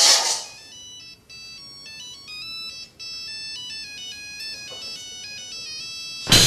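A mobile phone ringing with a simple electronic ringtone melody of stepped beeping notes. It is preceded by a brief burst of noise at the very start.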